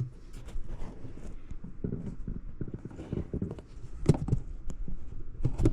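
Tool cart being handled: a run of irregular knocks and thuds, loudest about four seconds in and again near the end.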